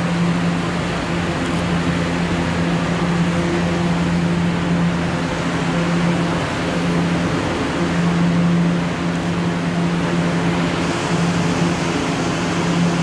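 Kawasaki R211 subway train coming to a stop at the platform and standing there, its onboard equipment giving a steady hum with a low tone over a wash of station noise.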